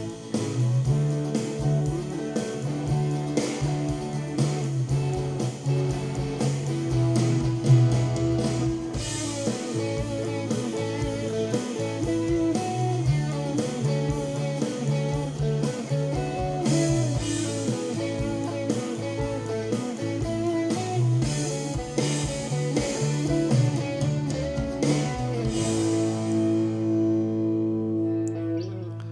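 Guitar-led blues-rock band with bass and drum kit, played back from a multitrack recording. Near the end the treble fades out while a low chord holds.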